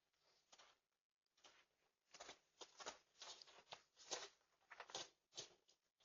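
Soft, irregular rustling and crunching, about two sounds a second, from a deer moving and feeding close to a doorbell camera's microphone.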